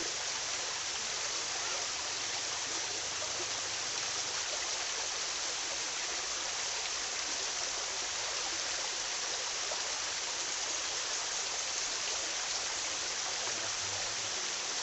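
Steady rushing of flowing river water, an even hiss with no change in level.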